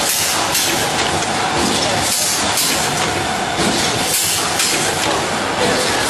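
Rotary pouch-packing machine running: a steady mechanical clatter with repeated short hissing bursts.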